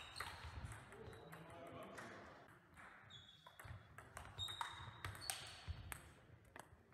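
Table tennis rally: the ball clicking sharply off the bats and the table, a string of hits spaced roughly half a second to a second apart, several with a short high ring.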